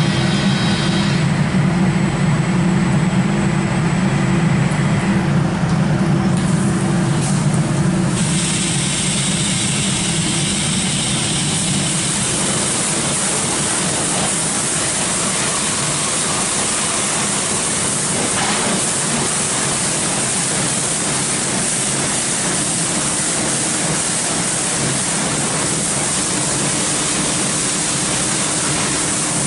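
Tammermatic UltraLux rollover car wash running over a car: a steady machine hum, and from about eight seconds in a continuous hiss of water spraying onto the car.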